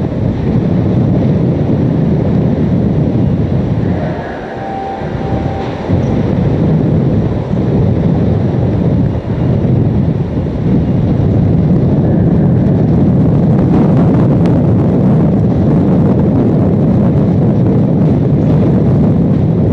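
Hurricane-force wind blowing hard across the microphone, a continuous rushing buffet that eases for a couple of seconds about four seconds in.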